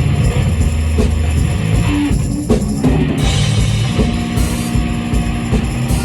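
Rock music with a driving drum kit and guitar.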